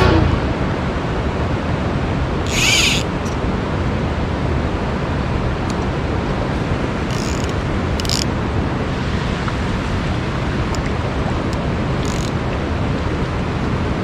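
Steady rush of flowing river water, with a few brief high hissing sounds scattered through it.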